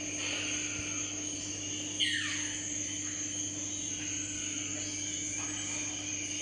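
Steady electrical hum and a high whine from running aquarium equipment. About two seconds in, one short chirp sweeps downward.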